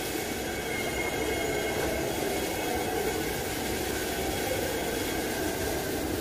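A machine running steadily: an even whir with hiss and a few faint steady tones, unchanging throughout.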